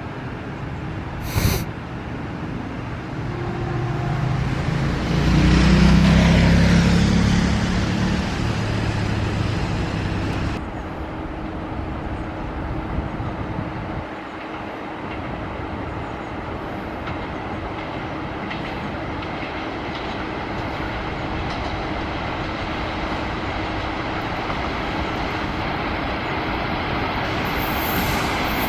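A train passing on the track: its running noise swells to a peak a few seconds in, with a falling whine, then gives way to a steady rumble of wheels on rail that slowly builds toward the end.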